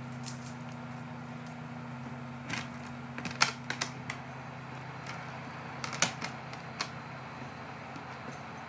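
Scattered light clicks and taps of small objects being handled, a few close together about three and a half seconds in, over a steady low hum.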